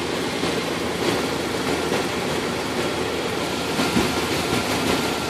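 Engine of a 2000 Dodge idling steadily, heard close up in the open engine bay.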